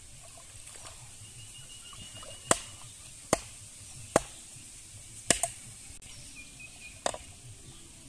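A bamboo stake being driven into a pond bed by hand: five sharp wooden knocks, each a single blow with a short ring, the fourth followed by a quick lighter second knock, spaced unevenly about a second apart.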